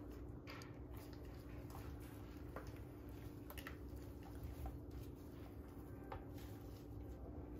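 Faint handling sounds of nitrile-gloved hands pulling and tying waxed rigging floss around a rubber skirt on a squid bait: scattered small clicks and rustles over a steady low hum.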